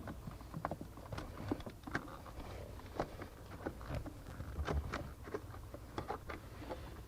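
Scattered light clicks, taps and rattles of a hood release cable being wiggled and tugged behind a parking brake lever under the dash.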